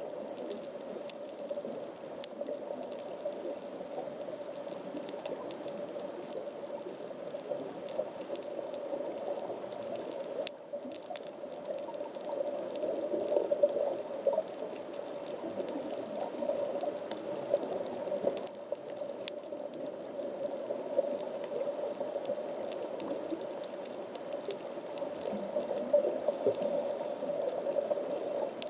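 Underwater reef ambience picked up by a camera in a waterproof housing at about 15 m depth: a steady low rushing, with many faint, scattered crackling clicks throughout.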